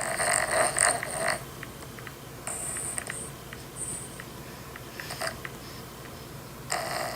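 Dog snoring: a series of wheezy snoring breaths, a long one at the start and another near the end, with shorter ones in between.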